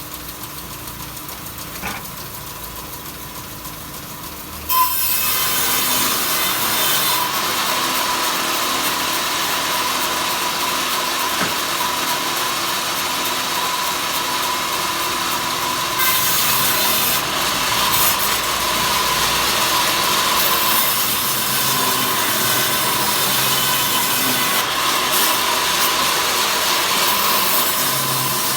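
Power saw ripping wood into thin slats. The motor runs quietly at first; about five seconds in the blade enters the wood and a loud, steady cutting noise with a constant whine carries on.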